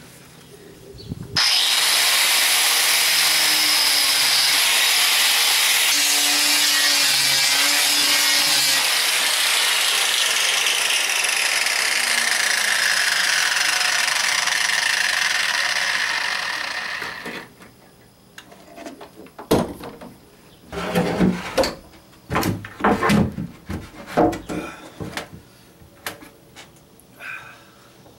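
Angle grinder with an abrasive disc grinding fiberglass off the inside of a boat hull. It starts suddenly, runs steadily for about fifteen seconds, then winds down. After it come a series of irregular knocks and thumps as a plywood deck panel is set into place.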